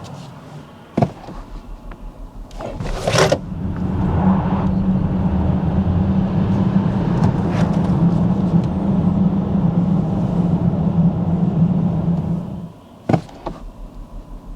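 Mercedes EQS 53 4Matic+ electric car driving, heard from the cabin: a steady hum with road noise that comes up about three seconds in and drops away suddenly near the end. A few sharp clicks fall before and after it.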